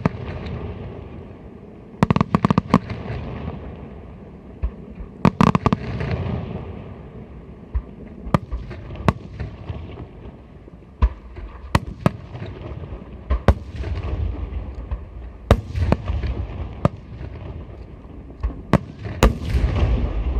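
Aerial firework shells bursting overhead: sharp bangs, some in quick clusters and others spaced out singly, each followed by a low rolling rumble.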